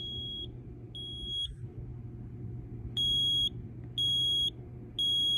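A broken 0915 smoke alarm's test beeps: high-pitched half-second beeps, one a second. Two fainter beeps, a pause, then three louder ones. The alarm is very quiet because a wire, the red one, has snapped off inside it.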